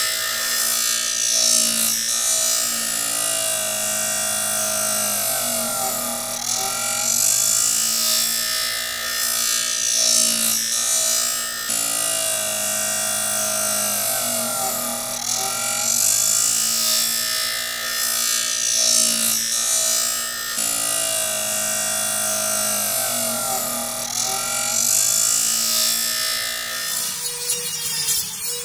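Electric drill spinning a brass wire wheel and wire cup brush against rusty sheet steel, scrubbing off the rust, under steadily looping background music.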